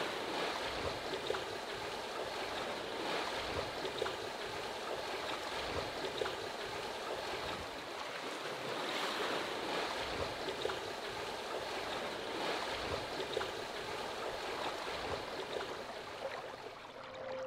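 Water swishing and gurgling along the hull of a sailing yacht moving slowly through a calm sea, a steady wash of noise with small splashes.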